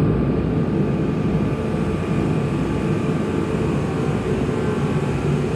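A steady, unbroken low mechanical drone.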